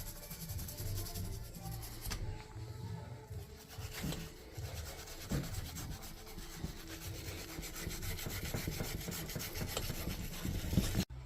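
Irregular hand rubbing and scraping at a Rotax 447 two-stroke piston to clean off carbon deposits, with a few light knocks.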